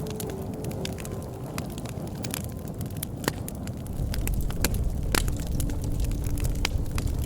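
Wood fire burning, with sharp irregular pops and crackles over a low rumble of flame that gets louder about four seconds in. A faint steady whistle sounds near the end.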